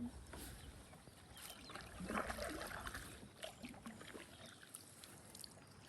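Faint water sounds of a kayak being paddled on a river: paddle blades dipping and water trickling, a little louder about two seconds in.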